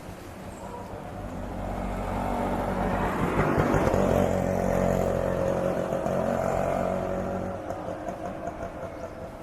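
A motor vehicle driving past on the road, its engine and tyres growing louder to a peak about three and a half seconds in, then fading away.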